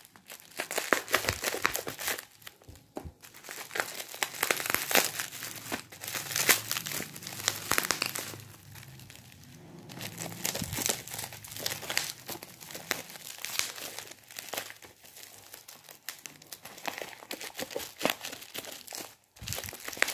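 Plastic bubble wrap crinkling and crackling in fits and starts as a small parcel is handled and cut open with scissors.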